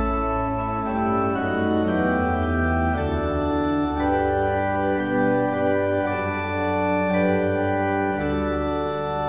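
Viscount Vivace 30 digital church organ playing a hymn in slow, held chords over a sustained deep pedal bass, the chords changing about once a second.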